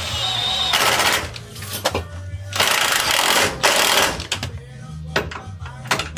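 Impact wrench running in two bursts of about a second each, driving home the bolts of a new lower control arm, with music playing underneath.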